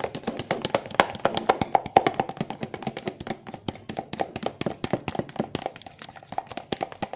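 A utensil stirring a thick shampoo, toothpaste and salt mixture fast in a bowl, knocking against the bowl about six times a second with a light ring from the bowl.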